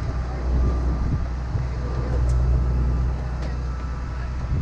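Steady low rumble of airport apron noise, with a faint steady whine above it.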